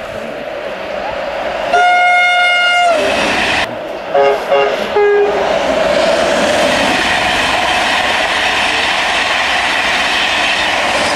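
A train sounding its horn as it approaches, one long note followed by a few short notes a couple of seconds later, then running through at speed with a steady rushing rumble of wheels on rails.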